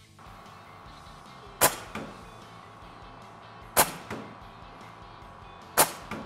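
Three shots from an Air Arms S510 XS Ultimate Sporter .25-calibre regulated PCP air rifle, about two seconds apart. Each is a sharp crack followed about a third of a second later by a fainter knock. The shots peak at about 95 dB on a sound meter.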